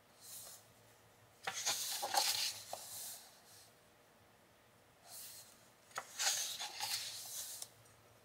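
Two pages of a softcover colouring book being turned, paper rustling and flapping as each sheet is lifted over and laid flat. The first turn comes about a second and a half in, the second about five seconds in.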